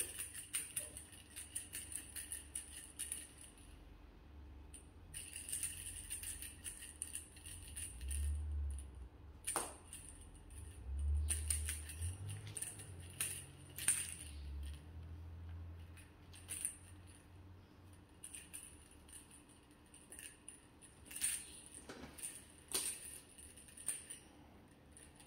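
Small jingle bell on a feather wand cat toy jingling in quick, rattly bouts as the toy is waved and batted, with short pauses between bouts and a low rumble about halfway through.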